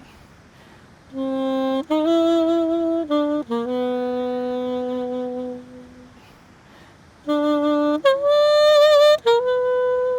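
Solo saxophone playing a slow hymn melody in long held notes, in two phrases separated by a short pause. It plays with a wavering vibrato on a note near the end.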